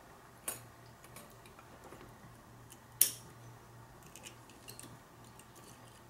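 Small metallic clicks and ticks as the steel levers of a five-lever lock are handled and slid off their post, with one sharp click about three seconds in.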